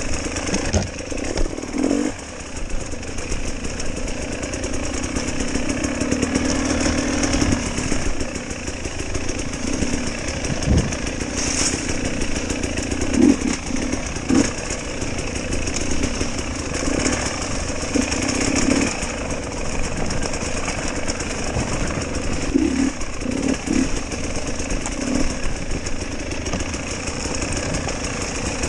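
GasGas hard enduro motorcycle engine revving up and down in repeated short bursts as it is ridden, with a few sharp knocks.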